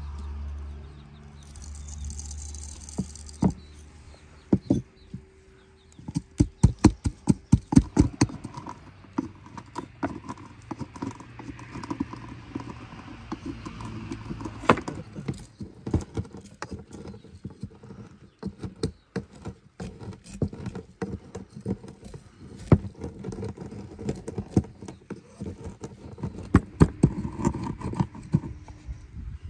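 Irregular sharp knocks and taps, with a fast run of them about six to eight seconds in and scattered ones after.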